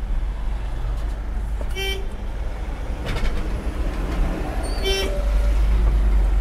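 Two short vehicle-horn toots about three seconds apart, over the steady low rumble of a vehicle driving in town traffic.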